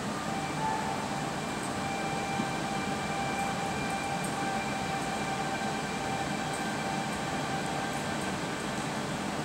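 Slow, droning music with long held notes over a steady rushing hiss; the held notes change to a new set about half a second in.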